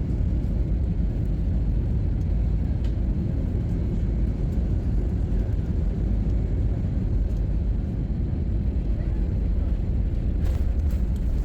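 Steady low rumble of an Airbus A321ceo airliner's engines and airflow heard inside the cabin, with a faint click about ten seconds in.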